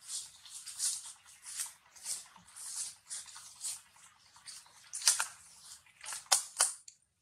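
Newborn long-tailed macaque suckling at its mother's nipple: soft wet sucking pulses about once or twice a second, with three sharper, louder smacks near the end.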